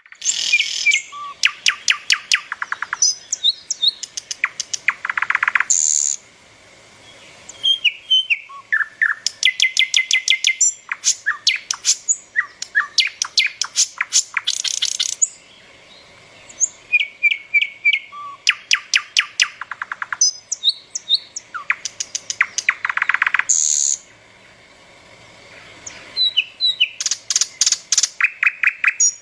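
Small songbirds chirping and calling in fast trains of sharp chirps, mixed with short whistled notes and trills. The calls come in bursts of a few seconds with brief lulls between them.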